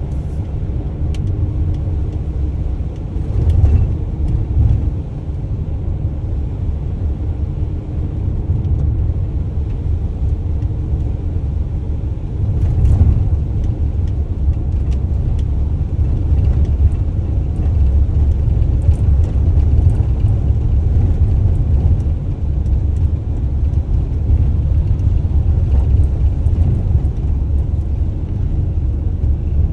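Delivery van driving along: a steady low rumble of engine and road noise, with brief louder swells about four seconds in and again around thirteen seconds in.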